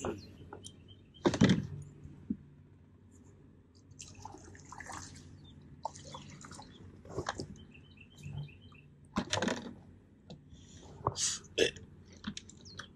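Water dripping and splashing around a plastic fishing kayak, with irregular clicks and knocks of rods and gear handled on the deck; the loudest knocks come about a second and a half in and again between about nine and twelve seconds in.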